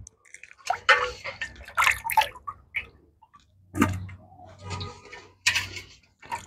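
Water splashing and dripping in several short bursts as a hand lifts small freshwater shrimp out of a metal basin of water and drops them wet onto a plate.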